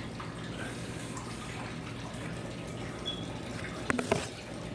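Steady background hiss with a low hum, and a few quick light clicks about four seconds in.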